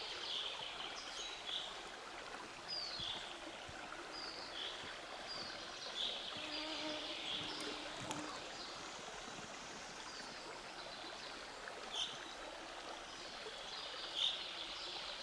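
Steady rush of a small taiga river flowing over stones, with a bird giving short high chirps again and again. Near the middle an insect buzzes briefly.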